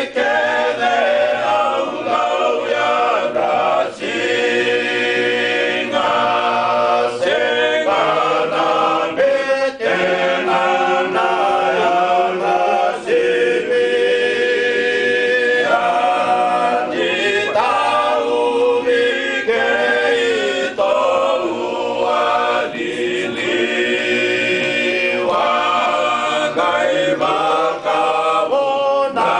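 Fijian men's group singing a traditional pesi chant unaccompanied, several voices in harmony, in phrases with brief pauses for breath every few seconds.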